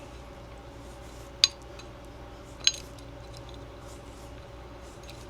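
Two small metallic clicks, about a second apart, as a front sight tool turns the screw holding a Glock's front sight, over a faint steady hum.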